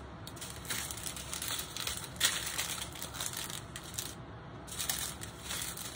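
Small plastic bags of diamond painting drills being handled, crinkling irregularly, with scattered sharp clicks, a sharper one about two seconds in.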